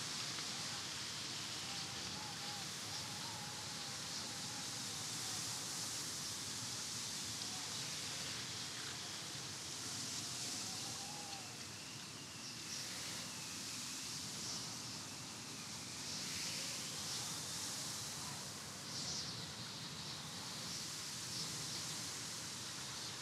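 Steady rushing wind, with a faint wavering howl rising out of it now and then.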